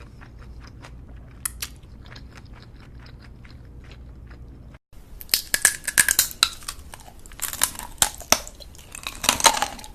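Close-miked eating: soft wet mouth clicks and chewing, then, after a brief cut to silence about halfway, loud crunching bites and chewing through the second half.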